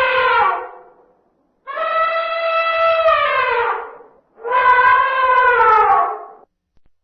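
Male African elephant trumpeting: two long calls of about two seconds each, their pitch dropping at the end, following the tail of an earlier call that dies away in the first second.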